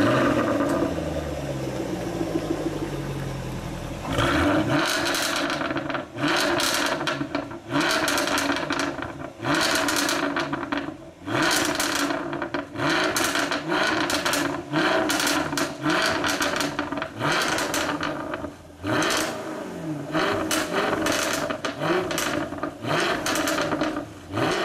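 Jaguar F-Type R Coupe's supercharged 5.0-litre V8 on its stock exhaust, idling high just after starting. From about four seconds in it is blipped again and again, about a dozen quick revs, each followed by sharp cracks and bangs from the exhaust as the revs drop.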